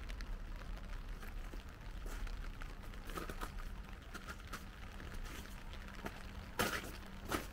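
Footsteps on wet ground in light rain: faint scattered ticks and scuffs, with one louder scuff near the end.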